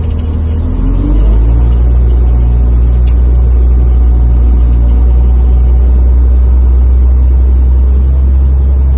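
Caterpillar 535B skidder's diesel engine running. It speeds up about a second in and then holds steady at the higher speed.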